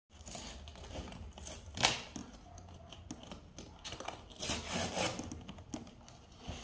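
A small child's hands rummaging in a cardboard biscuit box: irregular rustling and rubbing, with one sharp click about two seconds in.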